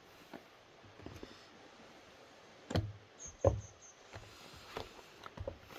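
Packaging of a speed cube being handled and opened by hand: scattered soft knocks and taps, with two louder thumps a little before the middle.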